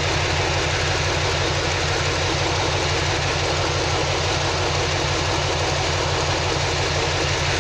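2003 Chevy Silverado 2500's 6.0-litre V8 idling steadily while it has a misfire, logged as trouble code P0300, random multiple-cylinder misfire.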